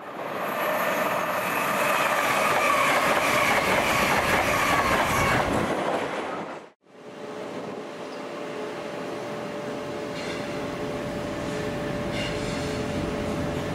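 Railway noise for about six seconds, then after a brief gap a DB Cargo Class 66 diesel locomotive moving through the station, its two-stroke V12 diesel engine running with a steady hum over the wheel and rail noise.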